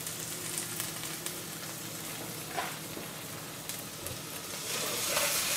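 Mackerel fillets sizzling steadily in a hot pan cooked without oil, with a few light clicks of a metal spatula; the sizzle grows a little louder near the end.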